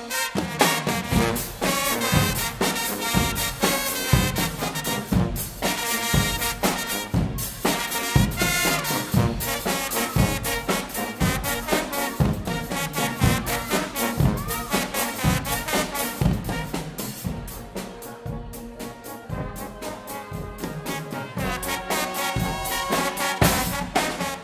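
Guggenmusik brass band playing: trumpets, trombones and sousaphones over a drum kit keeping a steady beat. The band plays softer for a few seconds past the middle, then returns to full volume near the end.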